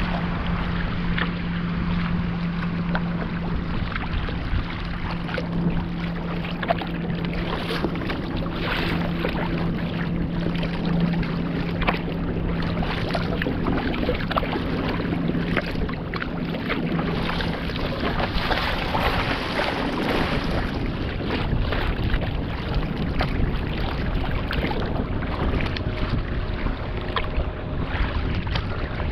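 Wind buffeting the microphone and choppy lake water splashing against a kayak's hull as it is paddled through waves, with many small splashes. A steady low hum runs underneath and stops about two-thirds of the way through.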